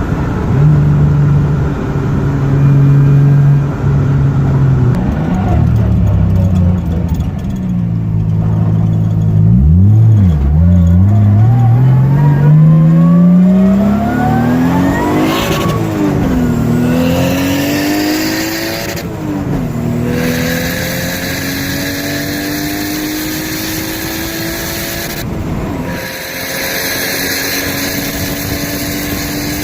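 Turbocharged 1JZ straight-six in a Toyota Cressida, breathing through a Magnaflow muffler, on a low-boost acceleration pull. The engine runs unevenly at lower revs, then revs up hard through a gear. The pitch drops at an upshift about halfway through, climbs through the next gear, drops at a second upshift, and keeps rising slowly.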